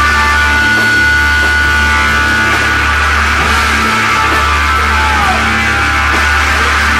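Heavy psychedelic rock with long held lead notes, one sliding down about five seconds in, over a steady bass line.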